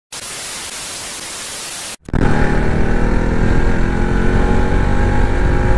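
A flat, even hiss that cuts off abruptly about two seconds in. Then a Bajaj Pulsar NS200's single-cylinder engine runs loudly and steadily as the motorcycle is ridden.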